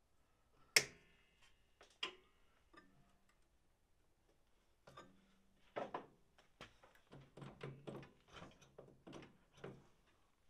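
Light metallic clinks and knocks of tools and parts handled at a car's pedal box: one sharp clink with a brief ring about a second in, a smaller one a second later, then a loose string of light knocks and clicks, about two a second, from about five seconds on.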